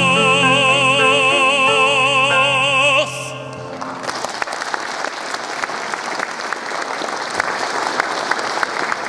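A male operatic voice holds the song's final note with a wide vibrato over sustained piano chords, stopping about three seconds in. The audience then breaks into steady applause.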